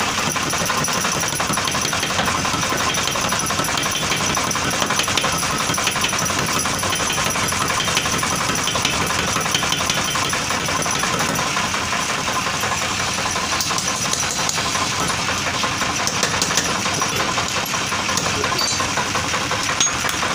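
Power forging hammer running and striking a red-hot iron bar in a rapid, steady series of blows, drawing the bar out into a sickle blank.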